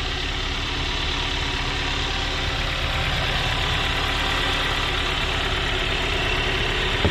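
Vehicle engine idling steadily, making an odd noise the owner cannot place. He says it sounds like it's about to blow up, and he wonders whether a leaking PCV valve is to blame.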